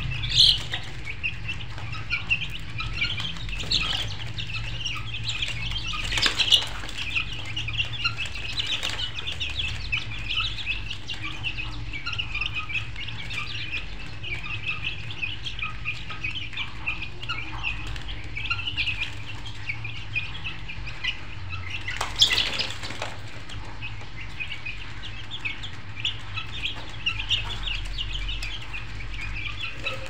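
A flock of birds chirping densely and without a break, over a steady low hum, with three louder brief sounds: about half a second in, around six seconds and around twenty-two seconds.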